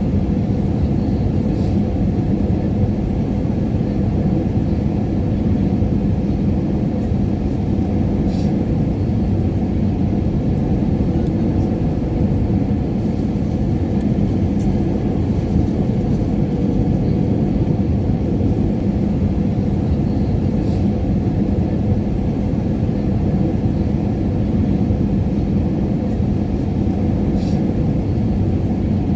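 Airliner cabin noise in flight: a steady, even low rumble of engines and airflow with a constant low hum.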